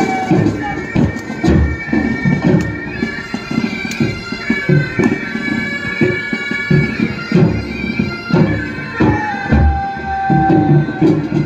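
Military pipe band: bagpipes playing a marching tune over their steady drones, with regular drum beats.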